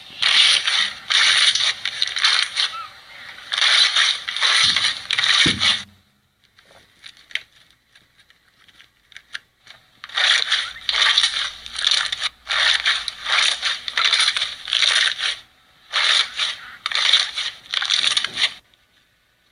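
Crunchy slime being squeezed and pressed, crackling and popping continuously. The crackling stops for about four seconds partway through, then resumes.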